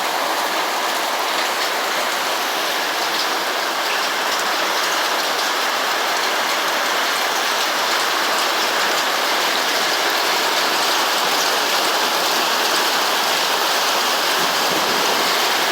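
Heavy downpour of rain mixed with hail, pounding steadily.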